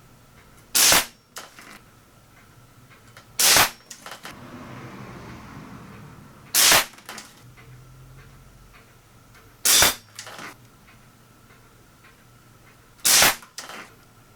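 Crosman 766 multi-pump pneumatic air rifle firing: five sharp shots about three seconds apart, each followed by a fainter knock.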